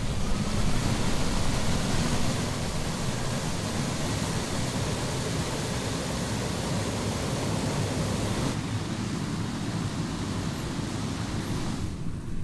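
Steady rushing noise of a propeller spun by a 400 kW electric motor on a ground test rig. The high hiss falls away somewhat about eight and a half seconds in.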